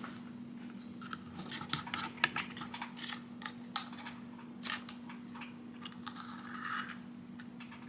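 Irregular metallic clicks, taps and scrapes of a socket wrench with a swivel socket being worked under a car, over a low steady hum.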